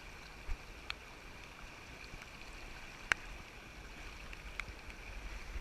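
Stream water running steadily, with a few short sharp clicks, the sharpest about three seconds in.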